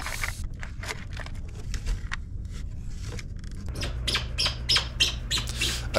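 Small plastic drywall anchors clicking in a plastic parts organizer, then a hand screwdriver driving a self-tapping screw-in drywall anchor into drywall, a run of small clicks and scrapes.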